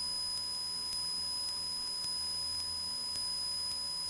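Steady electrical hum with a thin, constant high whine on a Cessna 172's headset intercom audio, the engine's drone muted to a faint low rumble underneath. It holds unchanged throughout.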